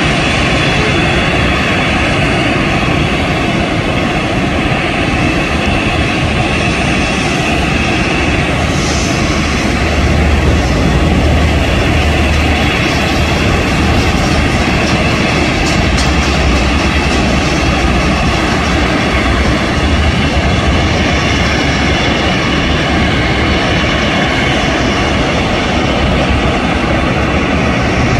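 Jet engines of a Boeing 767-300ER running at low power: a steady rush of engine noise with a high whine that fades after about eight seconds, and a low rumble that grows stronger about ten seconds in.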